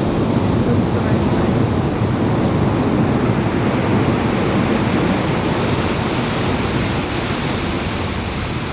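Ocean surf washing onto the beach, a steady noisy wash that eases slightly near the end.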